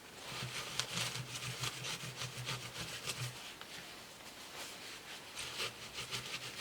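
Rapid back-and-forth rubbing strokes of old factory thermal paste being wiped off a laptop's cooling parts.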